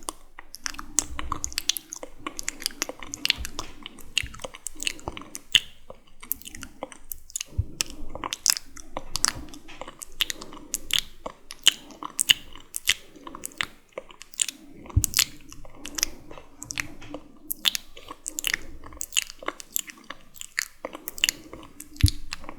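Close-up wet mouth sounds: quick sticky clicks and smacks of lips and tongue, several a second.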